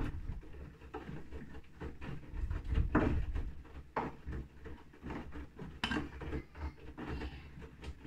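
Bosch front-loading washing machine in a wash cycle: the drum turning and wet laundry tumbling with water sloshing, in uneven swells, over a low steady hum.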